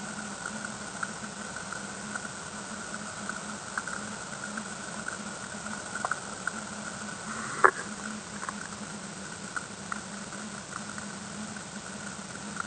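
Muffled underwater sound through a submerged camera: a steady low hum and a steady higher tone over a faint hiss, with scattered small clicks and one sharp, louder click a little under eight seconds in.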